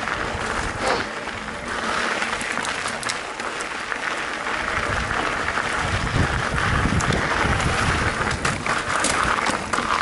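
Mountain bike riding along a dirt trail: steady rolling tyre and trail noise with scattered clicks and rattles from the bike, joined by a low rumble from about halfway through.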